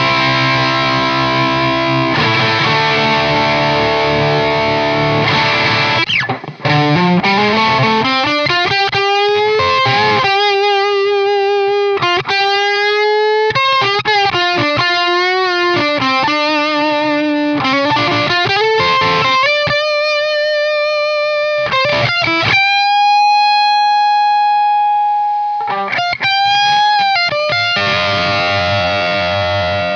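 Distorted electric guitar played through a Grossmann SG Box isolation cabinet loaded with a Celestion Creamback M65 speaker, miked with a Sennheiser e906 and a Cascade Fathead II ribbon mic. Dense chords for the first few seconds, then a lead line with rising bends and vibrato, one long held note in the second half, and chords again near the end.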